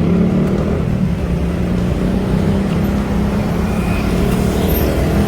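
Loud, steady low rumble of wind and road noise on the microphone during a bicycle ride.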